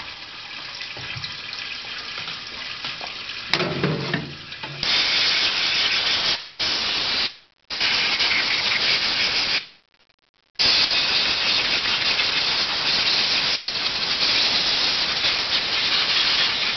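Compressed-air blow gun blasting air over solvent-wet AR-15 parts in a parts washer, in five long loud hissing bursts with short breaks between them, blowing off the mineral spirits. Before the blasts there is a quieter steady hiss, with a knock about three and a half seconds in.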